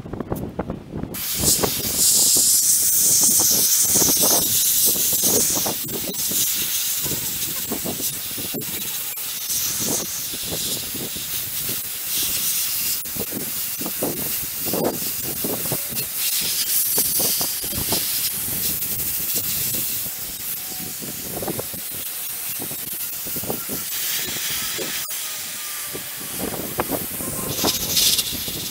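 Sandblaster gun blasting abrasive grit onto a 1966 Mustang's sheet-steel floor pan: a steady hiss of compressed air and grit that starts about a second in.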